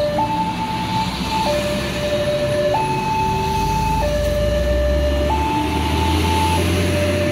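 Railway level-crossing warning alarm sounding, a steady two-tone signal that switches between a higher and a lower tone about every second and a quarter. Heavy trucks crossing close by add a low engine rumble that swells about four seconds in.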